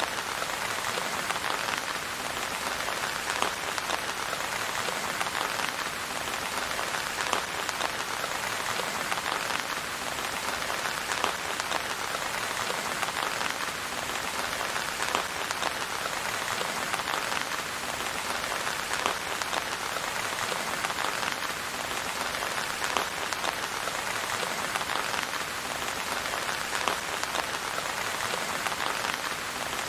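Steady rain falling on a hard surface, a dense even hiss thick with individual drop ticks. No thunder is heard.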